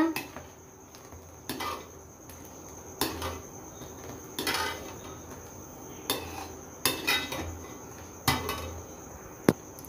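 A metal ladle knocking and scraping against the side of a metal kadhai while stirring simmering kadhi, with a separate clink every second or so and the sharpest knock near the end.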